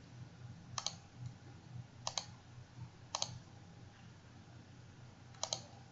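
Computer mouse clicking four times, each click heard as a quick pair, spaced one to two seconds apart.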